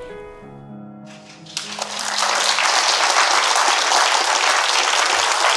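Soft background music with held notes fades out over the first second and a half. A studio audience then breaks into applause, quickly swelling and continuing steadily.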